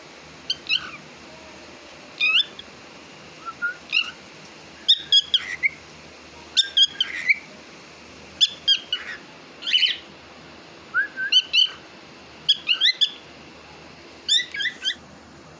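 Cockatiel chirping and whistling in short phrases of quick, sliding notes, one phrase every second or two.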